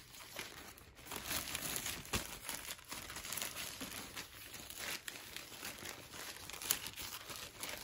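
Plastic packaging bag crinkling and rustling as it is handled and packed, an irregular run of small crackles.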